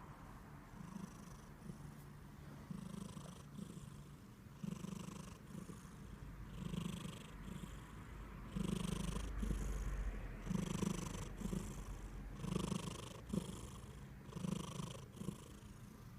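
Somali and Norwegian Forest cat mix purring, the purr swelling with each breath about once every two seconds.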